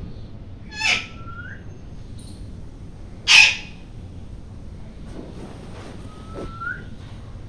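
Indian ringneck parrot calling: a harsh squawk about a second in that ends in a short rising whistle, a louder harsh screech a few seconds in, and another short rising whistle near the end.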